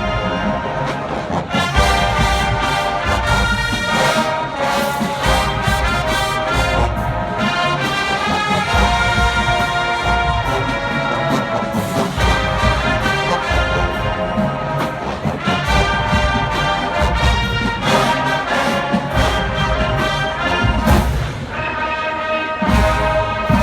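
Marching band playing: massed brass (trombones and trumpets) over a steady drum beat.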